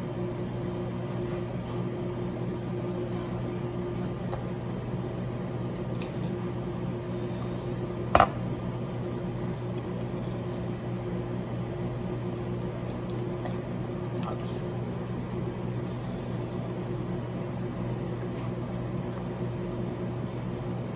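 Steady machine hum of kitchen equipment, with faint knife taps and scrapes on a plastic cutting board as a sea bream fillet is trimmed of its belly bones. One sharp knock with a short ring about eight seconds in.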